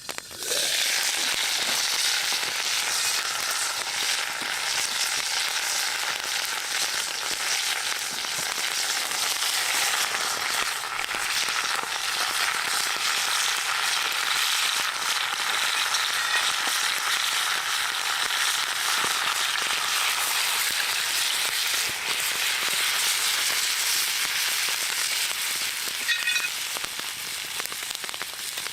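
Food sizzling in a pot over a campfire: a steady, dense hiss peppered with fine crackles, starting abruptly.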